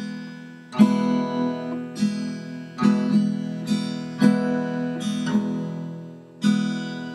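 Acoustic guitar strumming chords, each one ringing out and fading before the next, with no voice over it.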